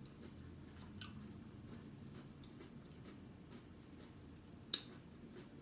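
A person chewing food close to the microphone, with a few faint clicks and one sharp click near the end.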